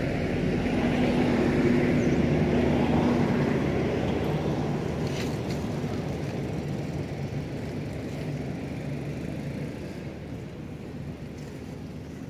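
Engine of a passing motor vehicle: a steady hum that grows to its loudest about two seconds in, then slowly fades away.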